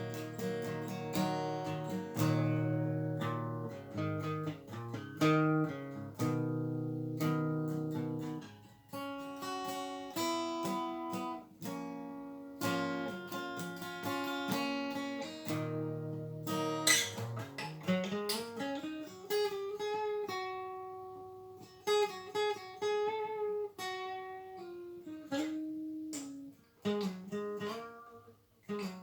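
Solo guitar playing: strummed chords for the first several seconds, then single-note pentatonic runs. About two-thirds of the way through, a note slides up and is held.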